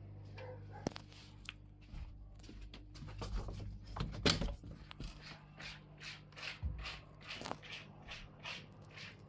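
Faint handling noise from a phone camera being moved about: rubbing, scraping and a few knocks, with one louder rustle about four seconds in. From about five seconds there is a run of short scuffs, roughly two a second, over a low steady hum.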